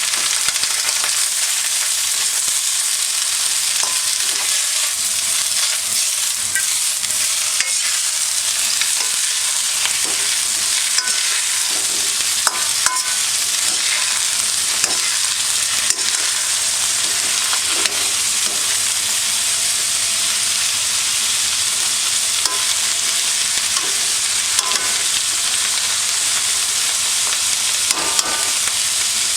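Stir-fry sizzling steadily in a hand-hammered iron wok, with a utensil scraping and clinking against the wok every second or two as the food is stirred and tossed.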